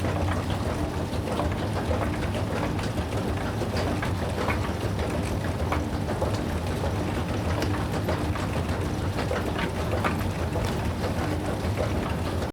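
Machinery running steadily: a low hum under a dense, irregular clatter of small ticks and clicks.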